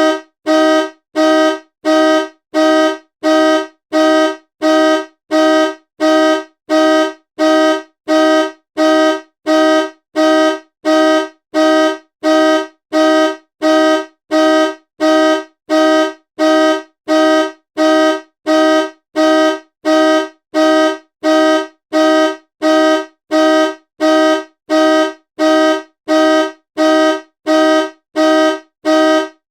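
Car horn honking in a long, even series of short loud blasts, about three every two seconds, each sounding two notes at once.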